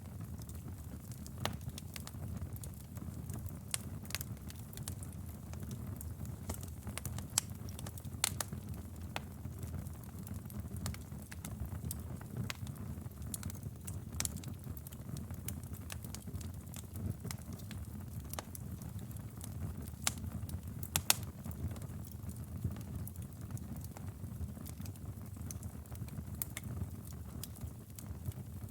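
Wood fire crackling in a fireplace: a steady low rumble of flames with irregular sharp pops, a few of them louder, the loudest about 21 seconds in.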